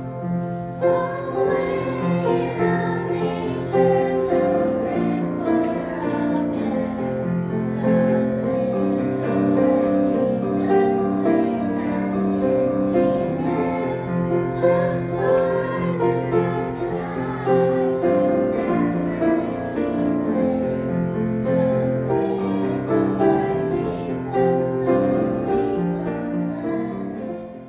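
A group of children and women singing a Christmas song together with piano accompaniment; the music ends at the very close.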